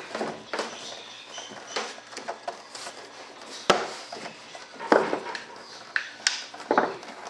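Handling noise of a molded composite stabilizer being worked onto its mounting tube on a large model airplane: light scraping and rubbing, with several sharp knocks in the second half.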